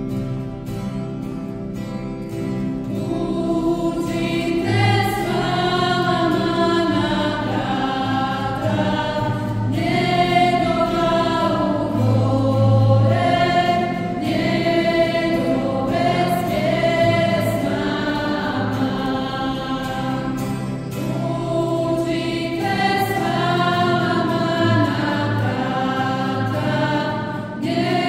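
Choir singing a church hymn with instrumental accompaniment. The voices come in about three seconds in after a short instrumental lead-in, with brief pauses between phrases.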